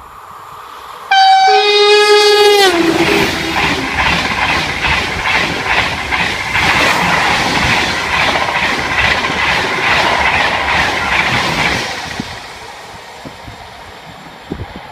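TGV double-deck high-speed trainset sounding its horn about a second in, a high note then a lower one whose pitch slides down as the train reaches the microphone. It then passes at speed with a loud rush of wheels and air and a regular rhythmic clatter over the rails, fading away near the end.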